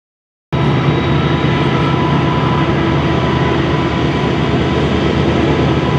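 Diesel freight locomotives running, a loud steady drone with a few thin whining tones over it. It starts suddenly about half a second in.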